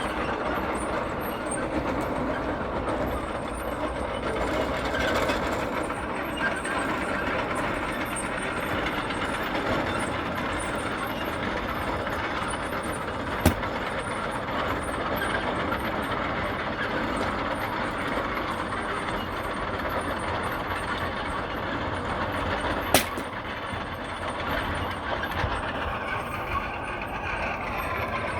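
An engine running steadily, with two sharp cracks, one about halfway through and one near the end.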